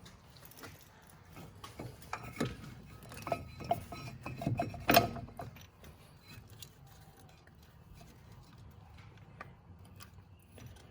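Metal brake parts being handled and fitted by hand: scattered light clinks, scrapes and knocks. They come thickest between about two and five seconds in, with the loudest knock around five seconds, and only faint handling noises after that.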